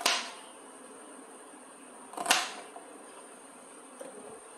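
Kitchen knife chopping through shallots onto a plastic cutting board: two sharp chops about two seconds apart. Near the end comes a light click as the cut pieces are pushed off the blade into a plastic blender jug.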